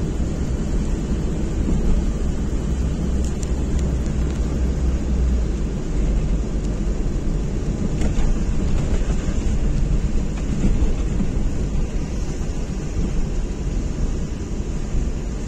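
Car interior noise while driving on a wet road in the rain: a steady low rumble of engine and tyres on wet asphalt.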